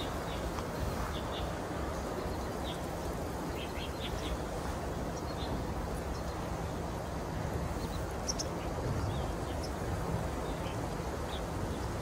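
Outdoor ambience: a steady low rumble of background noise with scattered short, high bird chirps.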